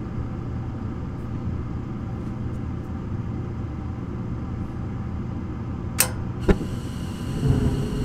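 Gas furnace's draft inducer motor running with a steady hum. About six seconds in come two sharp clicks, and then a louder low rumble as the burner lights. Only the first burner lights, because the orifice to the next burner is plugged.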